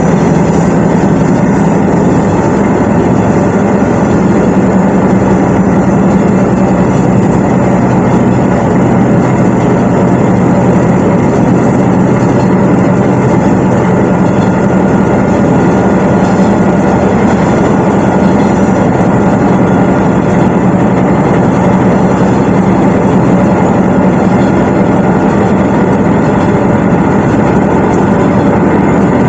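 Shigaraki Kohgen Railway SKR401 diesel railcar underway, heard from inside the passenger cabin: the diesel engine running steadily with a low drone, over the rumble of the wheels on the track.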